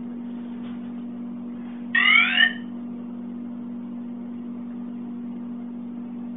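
Walkera G2D brushless gimbal powering up: a short burst of three quick rising electronic chirps about two seconds in, over a steady low hum.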